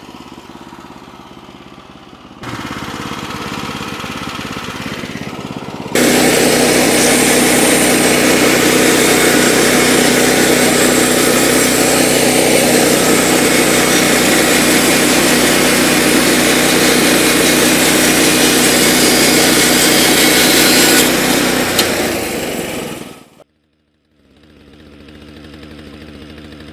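Gas-engine portable sawmill running: the engine idles, speeds up about two seconds in, then at full throttle the blade cuts through a log with a loud, steady noise for about fifteen seconds. The noise tapers off after the cut, breaks off briefly, and the engine idles again near the end.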